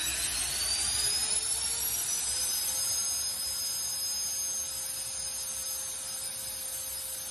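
Handheld electric ducted-fan blower spinning up, its high-pitched howl rising in pitch for about the first two and a half seconds, then running steady at full speed over the rush of air.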